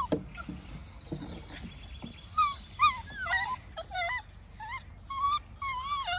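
Puppies whining in short, high cries that bend up and down in pitch, coming two or three a second from about two seconds in. A sharp knock sounds right at the start, followed by some scuffling.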